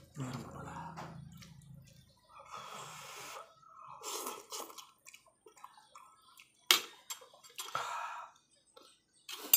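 Slurping of instant ramyun noodles and broth, in several bursts, with a sharp clink of a utensil against the bowl about seven seconds in.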